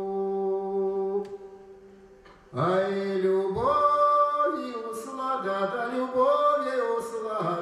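A man singing a Russian spiritual song with no clear accompaniment. A long held note dies away about a second in. After a short hush a new phrase begins about two and a half seconds in, its melody moving up and down in steps.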